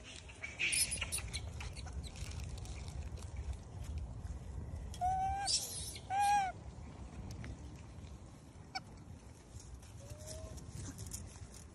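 Macaque calling: two short, arched tonal calls about a second apart midway, and a fainter rising call near the end. A burst of rustling comes about a second in, over a low background rumble.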